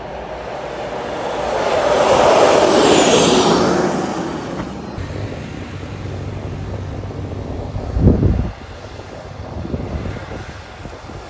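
J-10 jet flying past: the sound swells to a peak about two to three seconds in, with a high whine falling in pitch as it passes, then settles to a steadier, lower running sound. A brief low thump comes about eight seconds in.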